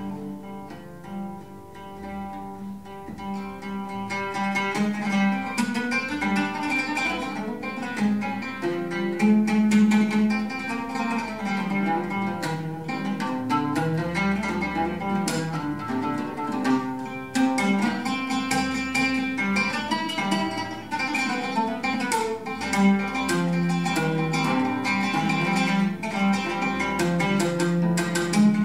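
Oud and piano playing a duet, the oud's plucked notes over piano chords. The playing grows louder and busier about four seconds in.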